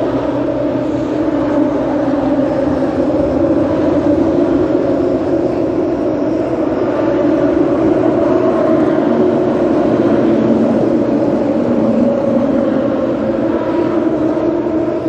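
Charter fishing boat's engines running, a loud steady drone with a low hum that holds unchanged throughout.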